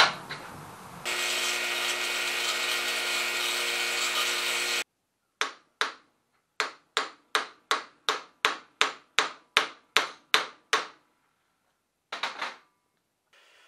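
Bench grinder grinding steel for about four seconds, then stopping abruptly. Then a hammer strikes steel held in a vise, pounding a socket into a press fit in a thick steel washer: two blows, a run of about a dozen at two or three a second, and two more near the end.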